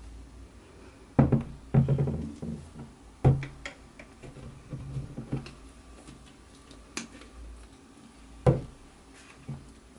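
Handling knocks on a tabletop: a silicone face mold in its plaster jacket is set down and a latex bottle and brush are picked up, giving a handful of sharp knocks and thuds, the loudest about a second in, around three seconds in, and past eight seconds.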